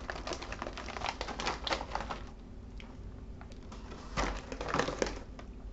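Plastic snack bag crinkling as it is handled: a run of crisp crackles, a short lull, then another burst of crinkling a little over four seconds in.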